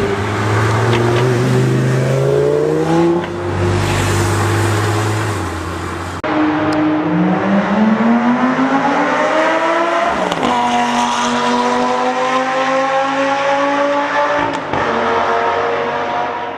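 Lamborghini Gallardo Superleggera V10 engine under hard acceleration, its pitch climbing as the revs rise. About ten seconds in the pitch drops sharply at an upshift and then climbs again.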